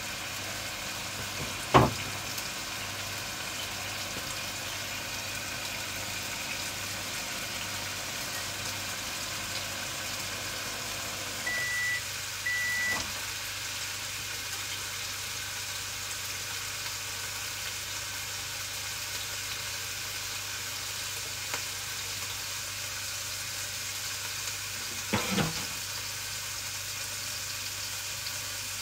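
Fried-rice ingredients frying in a pan, a steady sizzling hiss. A sharp clack comes about two seconds in, two short electronic beeps about twelve seconds in, and a clatter near the end.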